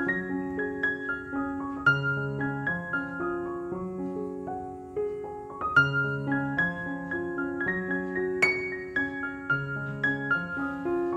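Background piano music: a gentle piano melody over low chords that change about every two seconds.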